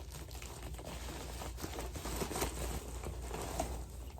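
Plastic packaging and bubble wrap crinkling and rustling as they are handled, with scattered small clicks.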